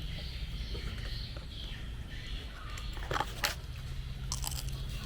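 Birds chirping, with two sharp clicks a little past halfway and a few more near the end, over a steady low rumble.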